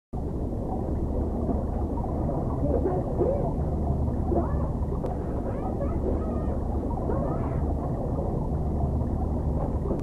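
Heavily muffled audio filtered to sound as if heard underwater: a steady low hum with short, wavering tones that glide up and down over it.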